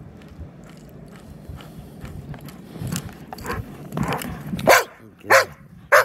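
Yellow Labrador retriever barking three times in quick succession near the end, short sharp play barks. Before that there is only softer scuffling.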